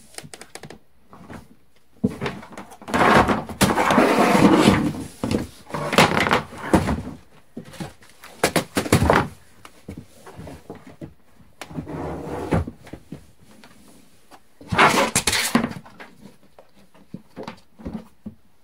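Large plastic storage tote and its lid being handled, with several bursts of knocking and scraping on the plastic; the longest runs from about two to seven seconds in, and another short loud burst comes about fifteen seconds in.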